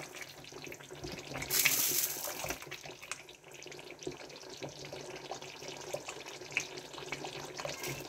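Tomato stew boiling in a pot, bubbling and popping steadily, stirred with a spatula at first. There is a brief louder hiss about one and a half seconds in.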